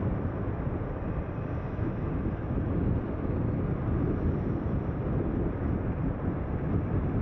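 Steady rumble of a car on the move: engine and tyre noise with no distinct events.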